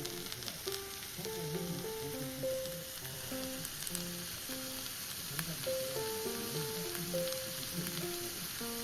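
Food sizzling and crackling on the hot plate of a smokeless cassette gas grill, a steady hiss with scattered pops. A simple background melody plays over it.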